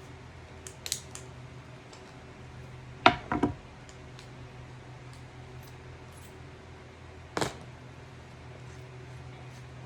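Metal clinks and clanks of channel-lock pliers and a drill bit on a hammer drill's chuck as the bit is changed. There are a few light clicks about a second in, a loud clank with a quick double rattle around three seconds, and another clank near the end, over a faint steady hum.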